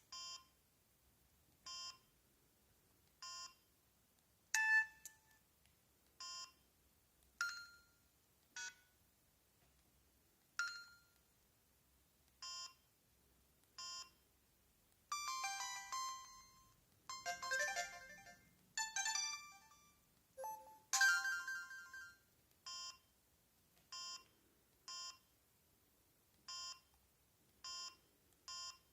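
Samsung SGH-M600 mobile phone playing short previews of its built-in ringtones, each melody cut off after a second or two. Between the previews comes a short, identical beep about every second and a half, closer together near the end, as the ringtone list is stepped through.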